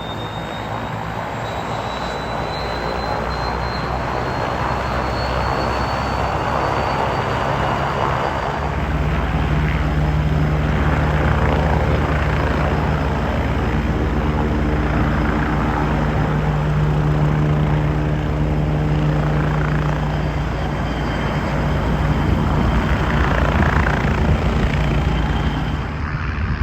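Helicopter running close by. A high turbine whine rises over the first few seconds, and the steady low rotor drone grows louder about a third of the way in and holds.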